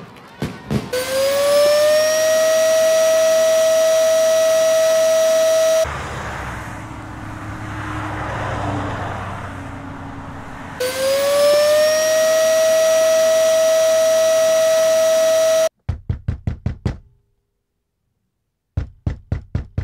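A vacuum cleaner motor starts up with a whine that rises briefly in pitch and then runs steadily. A vehicle passes with a swelling and fading noise, then the vacuum starts up and runs again. Near the end come two quick runs of knocking on a door, about eight knocks each, with a short silence between them.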